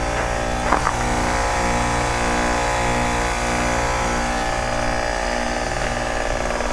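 2003 Carrier TECH2000 4-ton heat pump's outdoor unit running in its defrost cycle, a steady machine hum with several constant tones from the compressor as the ice on the coil melts off.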